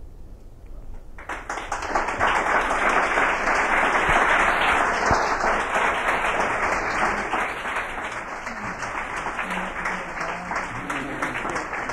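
Audience applauding. The clapping starts abruptly about a second in, is loudest over the next few seconds, then eases off slightly.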